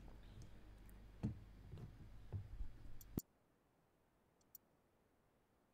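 Faint room noise over an open microphone with a few soft clicks and knocks. About three seconds in, the sound cuts off abruptly to near silence, broken once by a tiny click.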